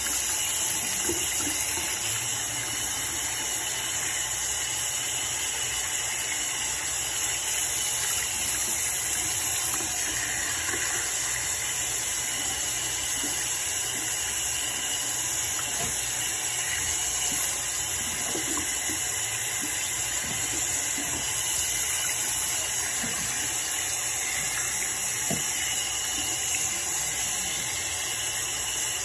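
Bathroom sink faucet running in a steady stream, the water splashing over cupped hands into the basin.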